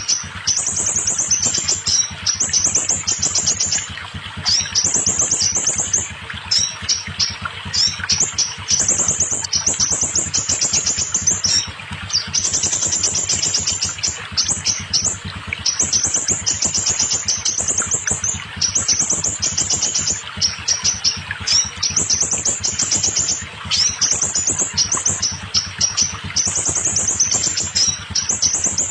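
Scarlet minivet (sepah raja) song: rapid, high chattering trills in phrases of one to two seconds, repeated with short gaps between them.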